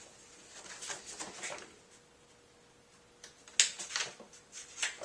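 Pages of a paperback picture book being leafed through by hand: a run of short paper rustles and flaps, the sharpest about three and a half seconds in.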